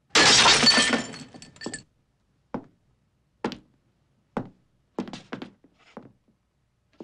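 Glass bottle smashed against a bar counter: a loud shatter with breaking glass trailing off over about a second and a half. Then a string of single short knocks, roughly one a second.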